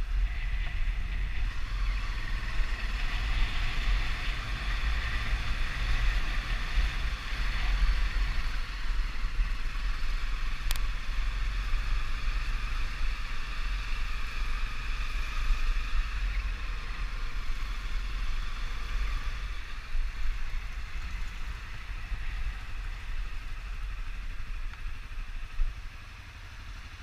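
Honda 250 motorcycle being ridden: steady engine, air and road noise with a heavy low rumble. One sharp click about eleven seconds in, and the noise drops quieter near the end.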